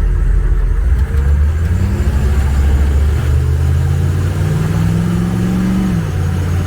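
HMMWV's V8 diesel engine running. It rises in pitch about a second and a half in, climbs again a little after three seconds, holds there, then drops back near the end.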